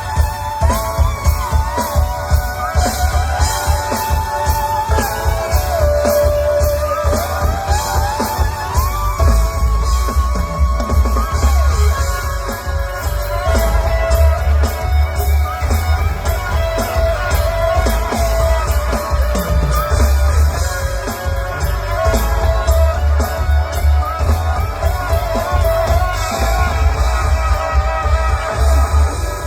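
Live rock band playing, with a heavy bass and drum beat under a wavering, pitched melody line.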